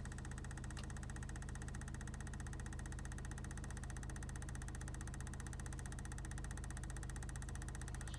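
Car engine idling with a fast, even knocking that does not let up.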